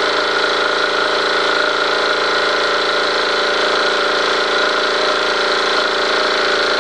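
Wilesco D222 toy steam engine running steadily on live steam, its twin cylinders chuffing in a fast even beat as the flywheel and belt-driven line shaft turn.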